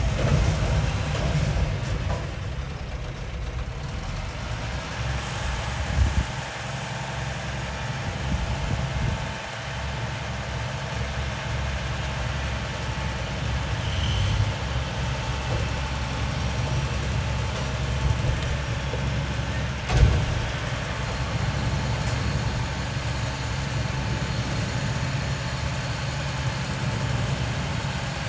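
Garbage truck engine running at a steady idle, with a sharp bang about twenty seconds in and a smaller knock around six seconds in.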